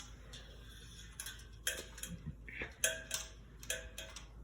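Handling noise from an unmounted ceiling fan: several light clicks and knocks of its parts being moved, each followed by a brief faint ring.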